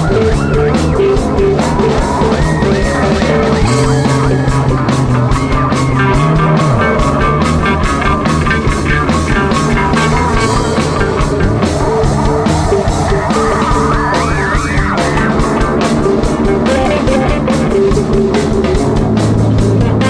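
Psychedelic rock band playing: electric guitar over bass guitar and a drum kit, loud and continuous, with a bass note sliding down about six seconds in.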